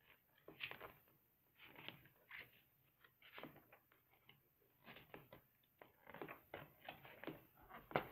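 Faint, scattered rustling and light taps of cardboard and paper being handled, growing busier in the last couple of seconds.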